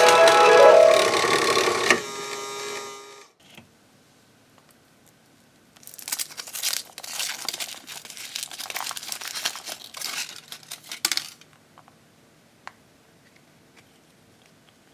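A short melody ends about two seconds in and fades out. From about six seconds in, a crinkly wrapper is torn and crumpled in a run of crackles lasting about five seconds.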